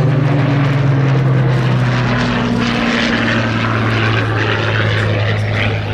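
Hawker Hurricane Mk I's Rolls-Royce Merlin V12 engine and propeller running hard as the fighter flies by. The loud, steady engine note drops in pitch about three seconds in.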